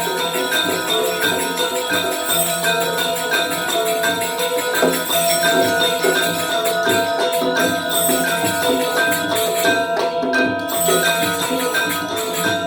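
Balinese gamelan ensemble playing the Legong accompaniment: bronze metallophones ring out a dense, steady rhythm of struck tones over low gong strokes.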